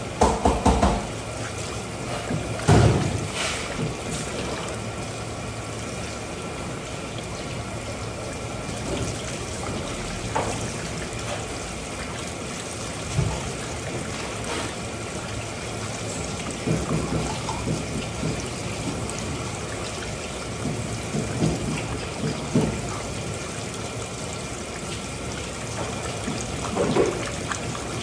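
Water running and trickling steadily, with a few short knocks scattered through it.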